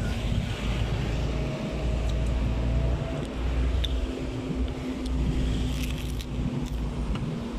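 Engine and road noise of a moving car heard from inside its cabin: a steady low rumble.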